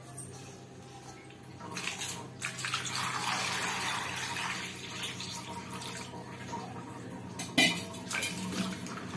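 Water poured from a steel pot into a stainless-steel bowl of Indian gooseberries (amla), splashing over the fruit. Hands then swish and rub the fruit around in the water. There is a light metal clink at the start and a sharper metal clank a little before the end.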